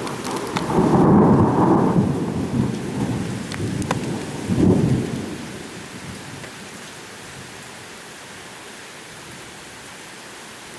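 Thunderstorm: low rolling thunder over steady rain, swelling again in a second peal just before five seconds in, then dying away to leave only the even hiss of rain.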